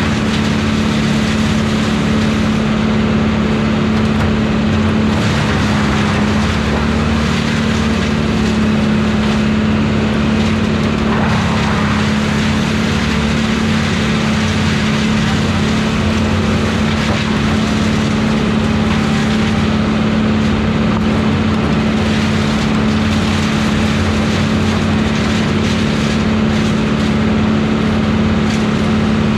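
Tree-service brush chipper running with a steady, unbroken engine drone.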